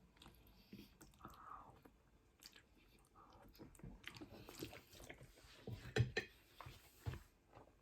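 A person chewing and biting food, faint, irregular mouth clicks and soft chews, with a sharper click about six seconds in and another just after seven.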